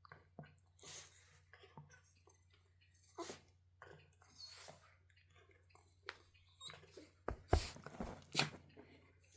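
A Bichon Frise snuffling and shuffling about at close range: a string of short, irregular sniffs and rustles, with a soft bump and the two loudest snuffles near the end.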